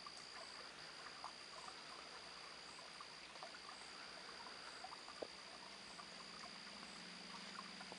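Faint night-time outdoor ambience: a steady, high-pitched drone of insects over a low hiss, with one small click about five seconds in.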